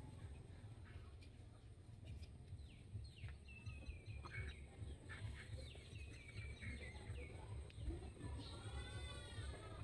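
Faint chicken clucks and short falling chirps, bunched in the middle, then one drawn-out arching call near the end, over a steady low rumble.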